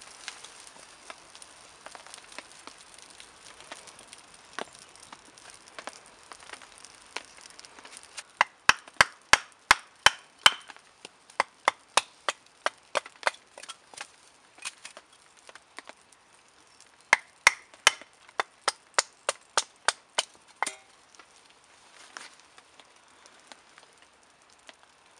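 Birch wood being split into kindling with sharp wooden knocks, about three a second. They come in two runs, one starting about eight seconds in and another about seventeen seconds in.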